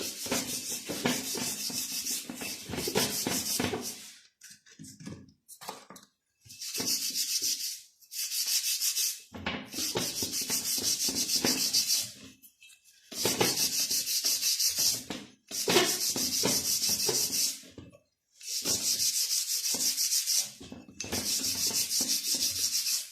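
Rapid scrubbing strokes on the rear wheel hub of a CG 125 motorcycle as it is cleaned, in about seven bursts of two to three seconds with short pauses between.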